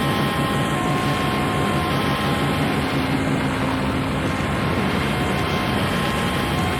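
Japanese harsh noise music from vinyl: a dense, unchanging wall of rumbling static with a few steady held tones running through it.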